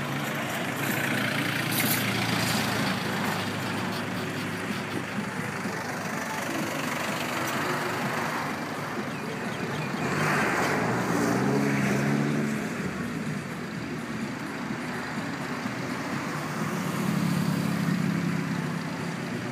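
Road traffic passing close by: vehicle engines and tyres swell and fade as each one goes by, with louder passes a second or two in, around ten seconds in, and near the end.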